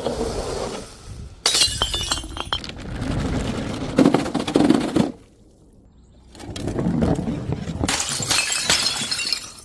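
Glass bottles smashing on stairs: a sharp crash about a second and a half in, followed by shards clattering and crunching for a few seconds. After a short lull, a second run of shattering glass comes near the end.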